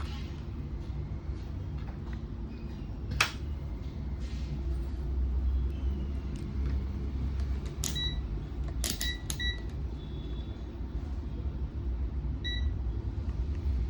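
Short electronic beeps, each starting with a click, about three times around the middle and once near the end, plus a single sharp click about three seconds in, over a steady low hum.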